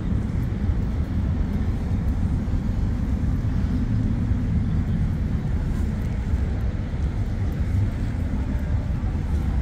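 City street ambience: a steady low rumble of passing road traffic.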